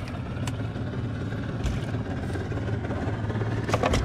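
A small engine running steadily with a low hum, as at idle, with a few short knocks and splashes from a mesh fish trap being handled at the boat's side, the loudest near the end.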